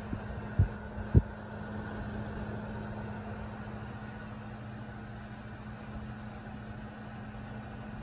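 Vornado Transom window fan running steadily: a steady motor hum over the even hiss of moving air. Three short low thumps come in the first second or so, the last the loudest.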